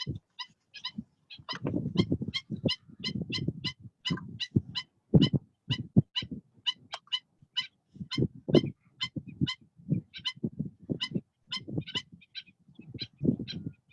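A bird calling over and over in short, sharp notes, about three a second, over an irregular low rumbling noise.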